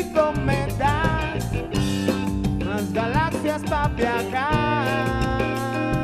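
A live band playing an upbeat song on electric guitar, electric bass and drum kit. A lead melody slides between notes over sustained bass notes and a steady drum beat.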